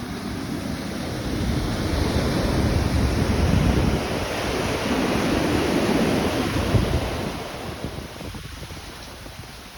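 Ocean surf breaking and washing in. It swells over the first couple of seconds, stays loud, then eases off in the last few seconds, with wind rumbling on the microphone.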